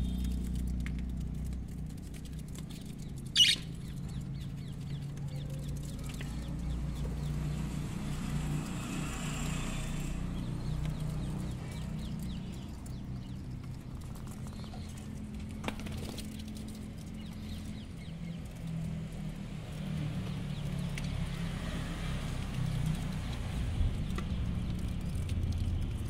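Budgerigars in a wire aviary: scattered faint chirps and wing flutters over a steady low rumble, with one sharp, loud sound about three and a half seconds in.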